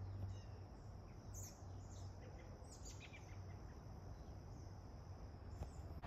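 Quiet woodland ambience: a few short, falling bird chirps over a steady, high insect drone that stops just before the end.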